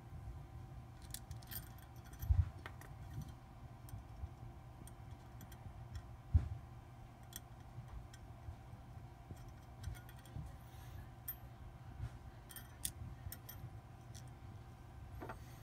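Small metal parts handled by hand on an espresso machine's heating-element flange: scattered light clicks and taps as the thermostat and its penny spacers are fitted, with two duller knocks about two and six seconds in.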